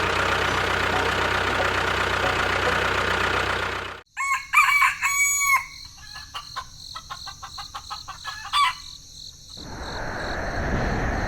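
Steady machine-like noise for about four seconds that cuts off suddenly. A few short pitched calls follow, then scattered clicks, and a rushing noise builds near the end.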